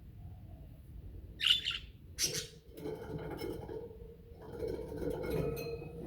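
Budgerigars chattering: two loud, harsh calls close together, then a stretch of rapid warbling chatter.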